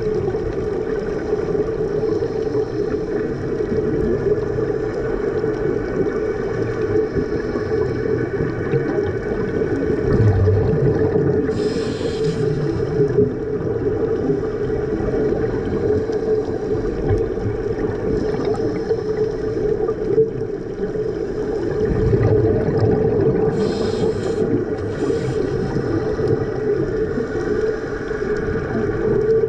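Steady droning hum of a boat engine heard through the water, with a strong low tone and fainter higher tones over it. Three brief hissing bursts cut in over the hum.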